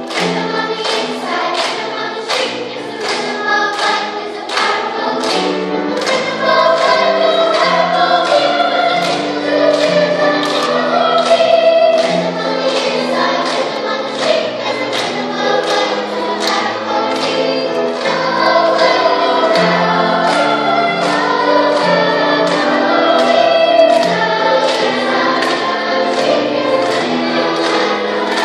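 Youth choir of children's voices singing an upbeat gospel-style song, with hand claps on the beat about twice a second. The singing gets louder about six seconds in.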